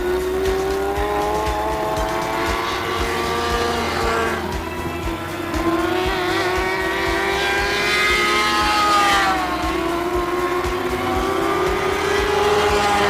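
Several lightning sprint cars racing on a dirt oval, their engines revving high and falling off again as they go through the turns and pass by.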